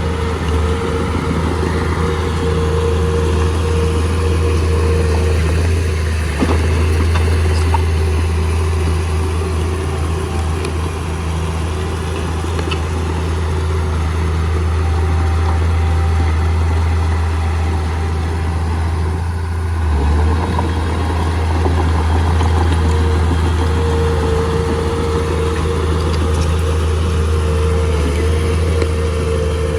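Mitsubishi 315M bulldozer's diesel engine running steadily while clearing soil, with a deep hum and a higher whine over it. The engine eases briefly about six seconds in and again near twenty seconds.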